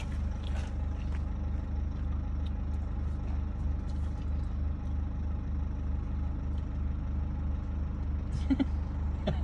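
A car's engine and tyres heard from inside the cabin while driving: a steady low rumble with an even pulsing.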